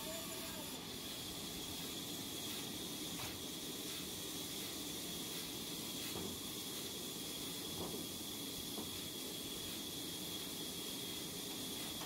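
Large sawmill band saw running steadily between cuts: a constant hiss with a thin, high steady whine. A few faint knocks come from timber being handled.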